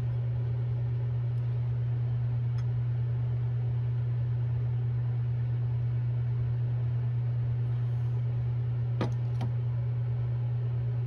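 Steady low mechanical hum, like a fan or motor, with two light clicks about nine seconds in.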